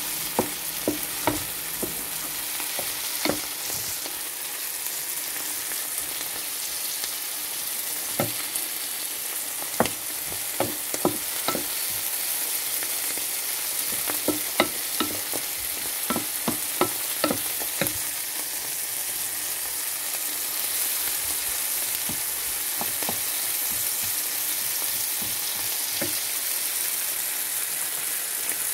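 Chopped vegetables sizzling in oil in a frying pan as they sauté, with sharp taps and knocks of a wooden spatula against the pan as they are stirred, most of them in the first two-thirds.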